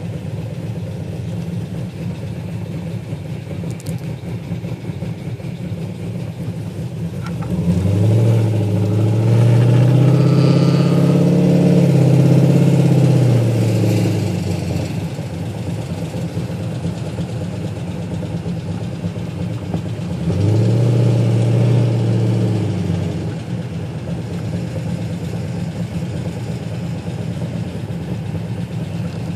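Pontiac GTO V8 engine idling, revved up and let back down twice, the first rev held several seconds and the second brief. It runs with a tick that the owner takes for a bad lifter.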